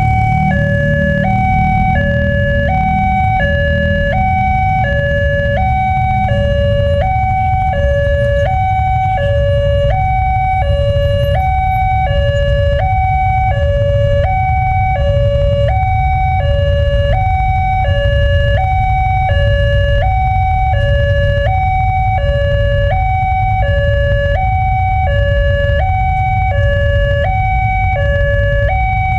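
Railway level crossing warning alarm from the pole-mounted loudspeaker: an electronic two-tone signal switching between a high and a low note, each held about half a second, sounding while the barriers are down for an approaching train. A steady low rumble lies underneath.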